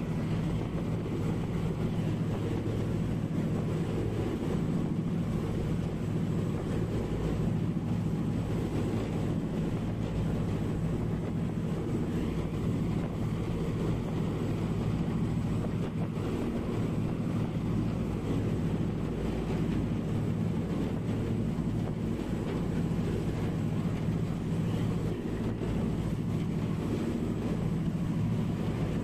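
Steady low drone of a vessel's engines under way, with water rushing along the hull and wind buffeting the microphone.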